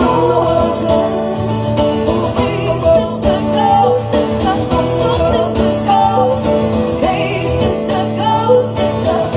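Female voices singing with guitar accompaniment in a live pop song mashup.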